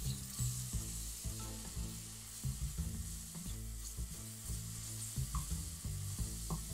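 Onion, ginger-garlic paste and ground spices sizzling in hot mustard oil, stirred with a wooden spatula that knocks and scrapes against the pan many times.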